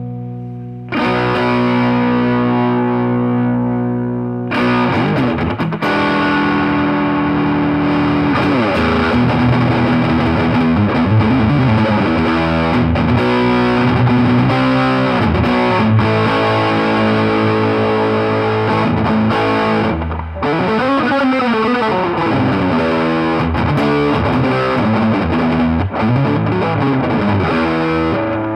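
Electric guitar played with an overdriven tone through a Mesa Boogie 5:25 Express 1x10 combo amp. A chord is struck and left to ring, then about four seconds in come riffs and lead lines with string bends. There is a short break about 20 seconds in before the playing goes on.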